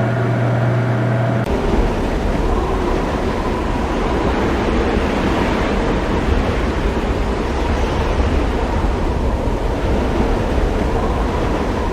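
Ambient atmosphere sound effect: a low humming drone with a steady higher tone gives way about a second and a half in to a steady, dense rushing noise with a faint thin tone held above it.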